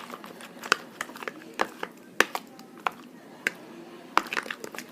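Spoon working shampoo-and-salt slime in a bowl: irregular sharp clicks and wet pops, one every half second or so.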